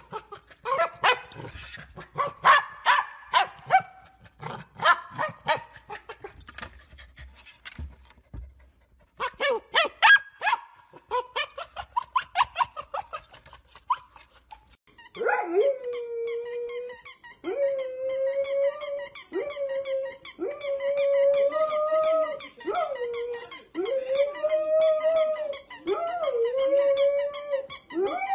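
A dog barking in rapid volleys, with a short pause partway through. About halfway through, the barking gives way to a string of long, drawn-out cries, each one to two seconds long, repeated one after another.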